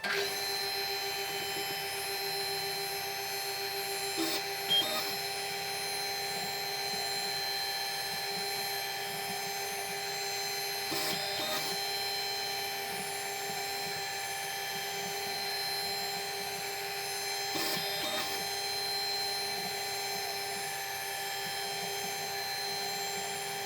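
Small metalworking machine tool running steadily with a constant whine, taking light cuts on a small part. Brief cutting or scraping noises rise over it about every six to seven seconds.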